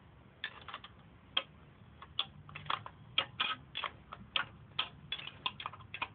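Ratchet wrench clicking in short, irregular strokes, a few clicks a second, as a bolt is backed off on a Yamaha Virago motorcycle.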